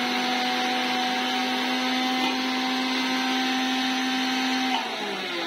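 Electric kitchen mixer grinder (mixie) running steadily while grinding fresh corn kernels. It is switched off near the end, and its pitch falls as the motor slows.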